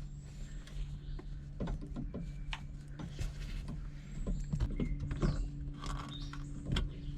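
Irregular light clicks, taps and scrapes of hand work on a VW Beetle's shift rod coupler as a lock wire is routed around its set screw, over a steady low hum.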